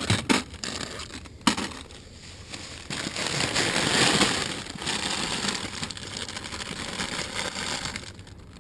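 Thin plastic bag and foil chip bags crinkling and rustling as they are handled and pulled out, loudest around the middle, with a couple of sharp crackles near the start.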